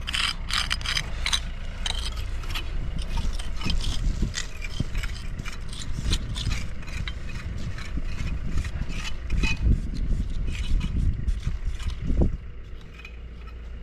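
Small pointing trowels scraping lime mortar out of the joints of a granite stone wall, in many short irregular strokes, over a low rumble of wind on the microphone. It goes quieter near the end.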